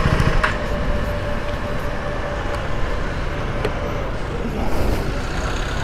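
Street traffic noise: vehicles running with a steady rumble.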